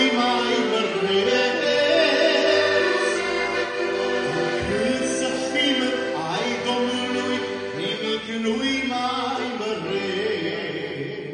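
A man singing a Romanian Christian song in long held notes, accompanying himself on the accordion; the music eases off near the end.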